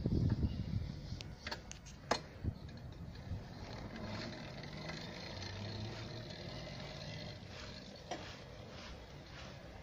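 Homemade chain-drive electric motorcycle moving off, heard as a faint motor hum with a few sharp clicks in the first two seconds.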